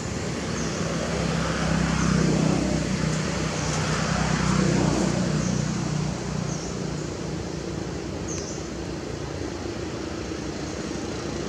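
A motor vehicle's engine running nearby, louder for a few seconds about two seconds in and then easing off, over steady outdoor background noise. Faint short high chirps come every second or two.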